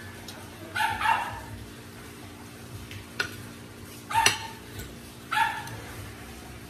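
A dog barking off-camera: two barks close together about a second in, then single barks about four and five and a half seconds in. One sharp click of cutlery on a plate about three seconds in.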